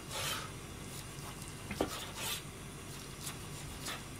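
Large kitchen knife slicing through a steamed roll of pounded chicken breast on a plastic cutting board: a few soft slicing strokes, and one light sharp tap about two seconds in.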